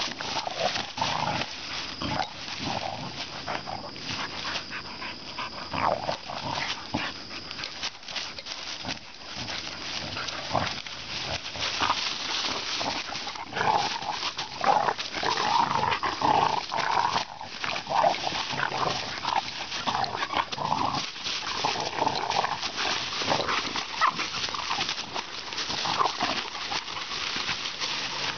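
Two dogs play-fighting, growling and snarling in short irregular bouts, with their paws scuffling in dry leaf litter.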